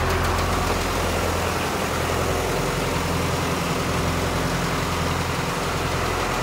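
Rear engine of an FMC LMD2000 aircraft deicer truck, just switched on, idling with a steady low hum.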